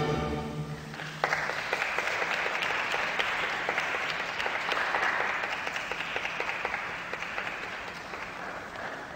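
The music's last note dies away and applause breaks out about a second in, swelling and then slowly thinning.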